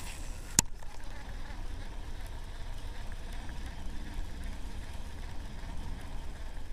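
Steady low outdoor rumble with a faint hiss, broken by a single sharp click about half a second in.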